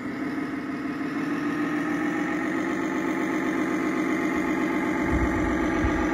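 RC model truck's electronic sound module playing a diesel engine idling steadily through its speaker. A deeper low rumble joins about five seconds in.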